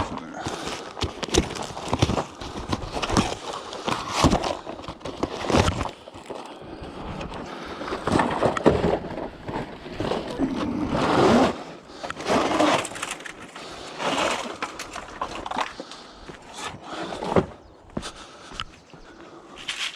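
Pieces of scrap metal being picked up, dropped and thrown about: irregular clanks, knocks and clatter with some scraping.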